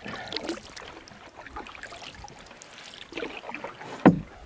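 Wooden canoe paddle dipping and pulling through calm lake water, with splashes and drips between strokes. A sharp knock comes near the end.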